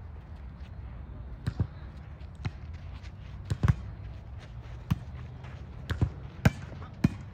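A volleyball being hit during a rally: a string of about ten sharp slaps of hands and forearms on the ball, irregularly spaced, the loudest a little past three and a half seconds and at about six and a half seconds.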